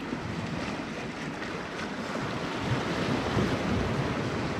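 Sea waves washing against a rocky shore, with wind rumbling on the microphone; the wash swells a little past the middle.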